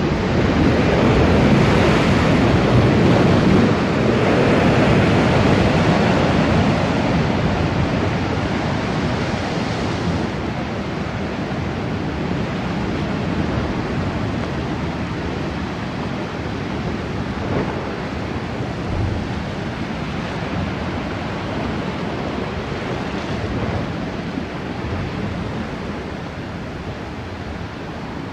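Sea surf washing and breaking against a rocky shore, with wind buffeting the microphone. It is loudest for the first several seconds, then settles a little lower.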